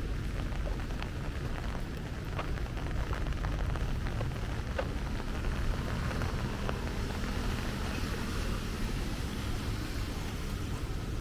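Heavy rain falling steadily, with a low rumble underneath and scattered sharp drop ticks in the first few seconds.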